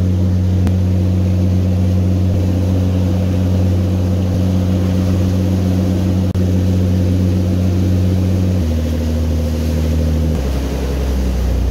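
Tour boat's engines droning at a steady low pitch under the rush of the churning wake. The drone shifts lower twice in sudden steps near the end.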